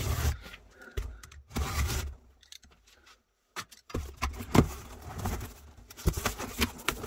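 Cardboard parcel being opened by hand: short scrapes and rustles of packing tape and cardboard, with a brief lull in the middle, then busier handling as the box flaps are pulled open.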